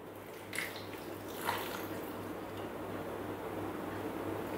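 Water trickling from a squeeze bottle into the Thermomix's stainless-steel mixing bowl, poured slowly to weigh out 40 grams, with small splashes about half a second and a second and a half in.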